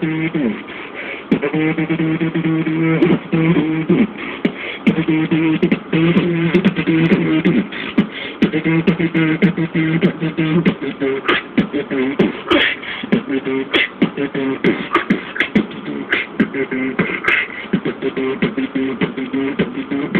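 Beatboxing: a hummed line of held notes under a fast pattern of mouth clicks and percussive hits. About halfway through, the low held note stops; the hummed part moves higher and the snare-like hits grow louder.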